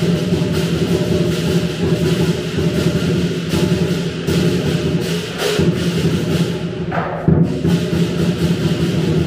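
Chinese lion dance percussion: a big drum beaten in a dense, continuous pattern, with cymbals and a gong clashing and ringing over it.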